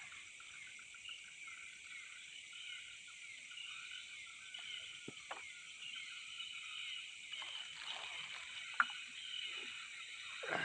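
Steady chorus of high chirping from night-calling animals, with a few faint clicks and rustles.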